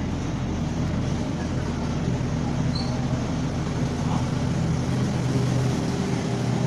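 Steady background rumble with a faint low hum.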